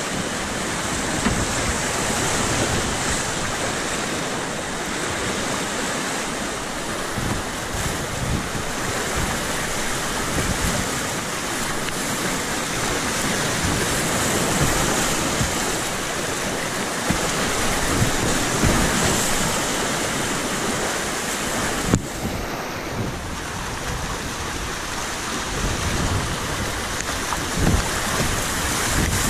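Whitewater rapids of a river rushing loudly around a kayak, a steady churning of water with a few brief louder surges. Wind buffets the microphone in rough low gusts.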